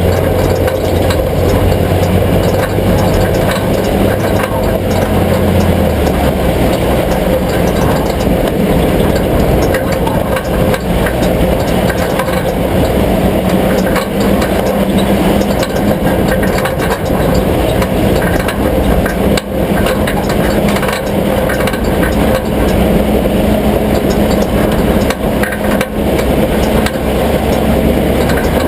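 A vehicle engine running steadily, loud and continuous; its low note steps down slightly about six seconds in.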